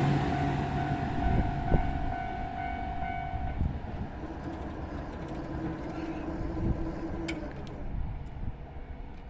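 Keihan 6000-series electric train running on past the level crossing, its rumble fading as it moves away. The crossing's warning bell rings over it and stops about three and a half seconds in, once the train has cleared.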